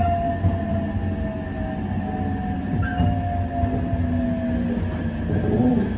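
A 287 series electric express train running, heard from inside the carriage: a steady low rumble with a thin whine that slowly falls in pitch.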